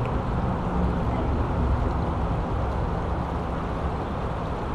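Steady rushing of a small mountain creek's water over rocks, an even noise heavy in the low end with no breaks.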